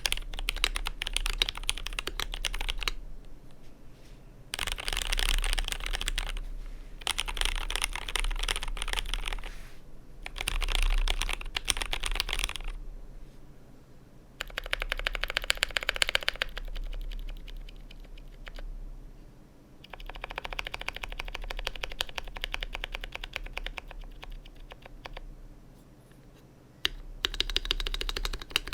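Fast typing on a custom GMMK Pro mechanical keyboard with Zealios V2 67g tactile switches on an FR4 plate: dense runs of key clacks in bursts of a few seconds, broken by short pauses.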